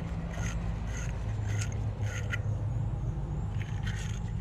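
Hand battery-terminal cleaning tool scraped back and forth on a car battery cable terminal, a rhythmic series of short scraping strokes about one every half second or so.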